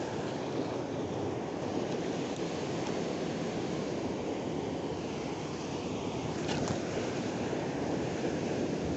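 Ocean surf breaking and washing over a rocky shore, a steady rushing sound.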